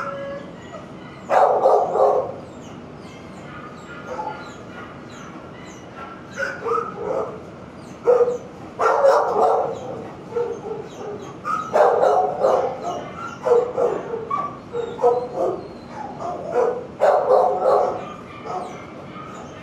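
Shelter dogs barking in their kennels, in short bursts every few seconds.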